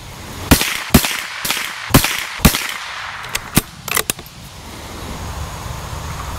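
A .22LR bolt-action rifle (Tikka T1X) firing CCI AR Tactical rounds: five sharp shots about half a second apart in the first two and a half seconds, then a few fainter cracks between three and four seconds in.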